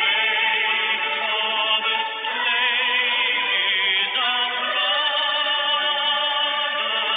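Recorded sacred song: a singing voice with strong vibrato over instrumental accompaniment, played back rather than sung live.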